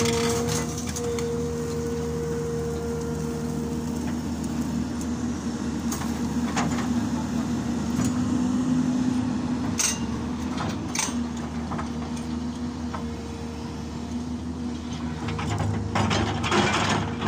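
Hyundai excavator's diesel engine running steadily with a low hum and a higher tone above it. A few sharp knocks sound through it, with a clatter of them near the end.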